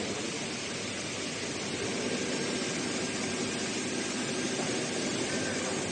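A heating-wire sewing machine running steadily, a continuous fast whirring with a hiss.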